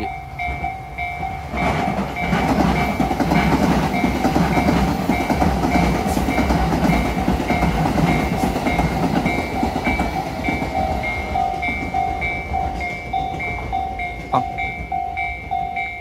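Japanese level-crossing warning bell dinging steadily and evenly while a Tobu Skytree Line commuter train runs past, its wheels rumbling and clattering loudest from about 2 to 10 seconds in.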